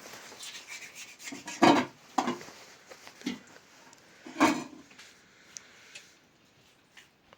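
A few short rubbing strokes, the loudest about one and a half seconds in and again about four and a half seconds in, with fainter clicks and knocks between.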